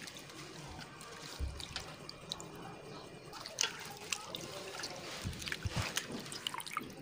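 Colocasia (taro) leaves being washed by hand in a steel bowl of water: irregular small splashes, sloshing and drips as the hands press and swish the leaves.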